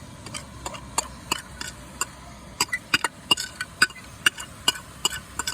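Cooking utensil clicking and scraping against a frying pan as raw ginger and garlic are stirred into browning ground bison, in irregular sharp taps that come thicker about halfway through.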